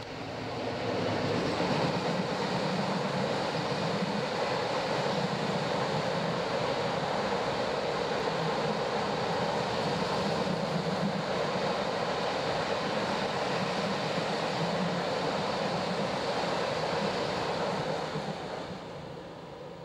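A long freight train of box wagons behind a Class 60 diesel rolling past: a steady rush and rumble of wheels on rail that builds over the first couple of seconds and fades as the last wagons pass near the end.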